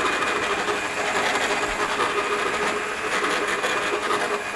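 Countertop electric blender running at a steady speed, whirring with a constant motor hum as it blends a runny orange spice mixture for rendang.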